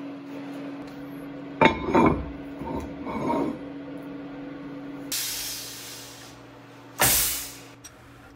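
A heavy aluminium plate is set down on a steel machine table with a knock, followed by smaller clinks. Later come two bursts of compressed-air hiss, the second shorter and louder, over a steady low machine hum.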